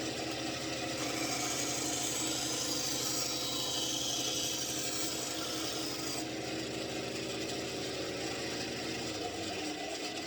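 Electric power tool running steadily with a motor hum. For a few seconds in the middle, a loud high hiss of the tool working material rides over it. The motor stops near the end.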